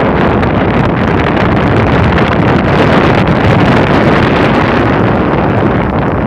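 Loud, steady wind buffeting the microphone over rushing sea water in big waves.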